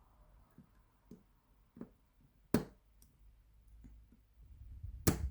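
Small metallic clicks from an 8-pin tubular cam lock being picked with improvised bypass tools, the lock's clicky feedback as the pins are worked. A few faint clicks come first, then a sharper click about two and a half seconds in and another near the end, over low handling noise.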